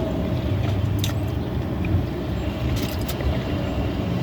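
Steady low rumble of a running car, with a few light clicks.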